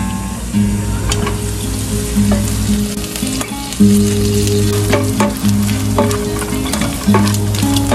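Blanched chopped meat sizzling as it sautés in a nonstick pot, with a utensil stirring it and clicking and scraping against the pot many times. Background music with steady low notes plays underneath.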